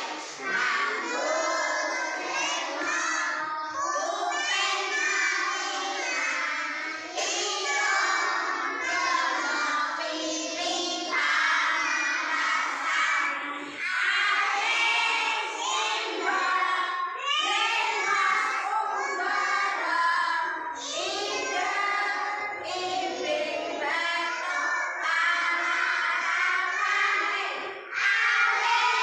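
A class of schoolchildren singing together in unison, phrase after phrase with short breaks between.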